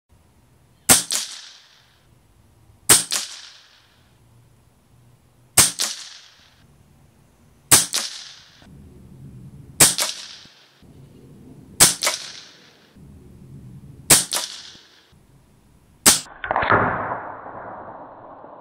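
RTI Arms Priest 2 .22 PCP air rifle firing eight shots, about one every two seconds, each a sharp crack with a short tail. A duller noise about two seconds long follows the last shot.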